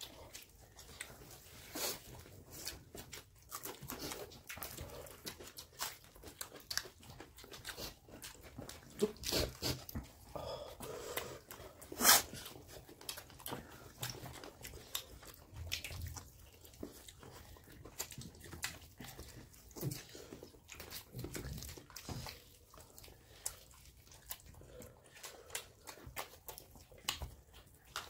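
A dog, heard among irregular clicks and crunches that go on throughout, with the loudest crunch about twelve seconds in.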